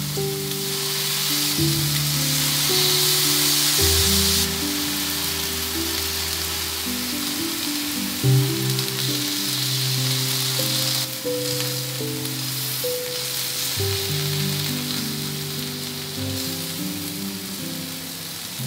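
Beef steak and vegetables sizzling on a hot grill pan, loudest in the first few seconds, with background music playing underneath.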